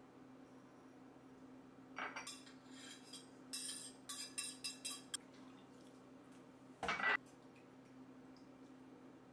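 Kitchen utensils and dishes being handled: a run of clinks and short scrapes over about three seconds, then a single louder knock. A faint steady hum sits underneath.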